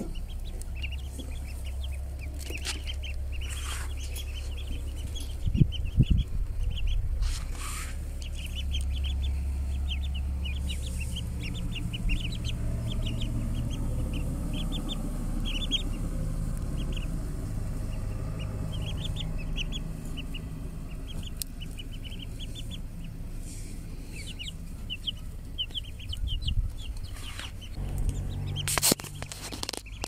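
Young chicks and ducklings peeping: many short, high cheeps in quick, irregular runs over a steady low rumble.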